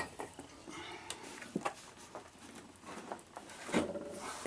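A few light clicks and knocks of parts being handled, scattered irregularly over faint room noise; the loudest comes about four seconds in.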